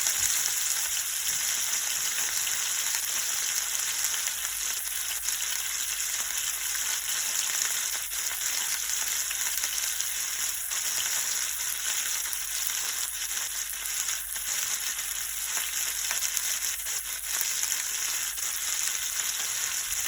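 Red snapper frying in hot oil on a stovetop: a steady sizzle with scattered small crackles.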